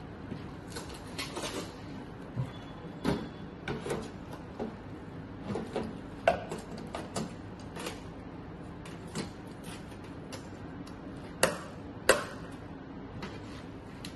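Irregular clicks and knocks of handle connector plugs being pushed into and locked in the sockets on the back of an EMSlim Neo body-slimming machine, with two sharp clicks close together near the end the loudest.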